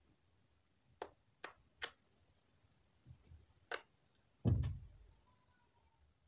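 Homemade clear-glue slime with orbeez being pressed and poked by fingers, giving a few sharp clicks and pops as air pockets burst, then a louder low thump about four and a half seconds in as the slime is lifted and handled.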